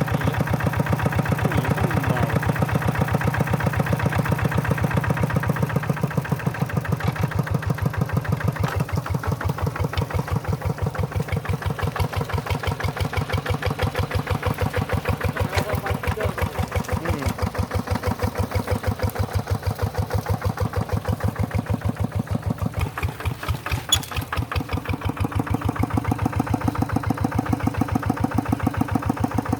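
Tractor engine running in the field, with an even, rapid pulsing beat. It grows a little quieter after about six seconds and louder again near the end, with a single sharp click shortly before.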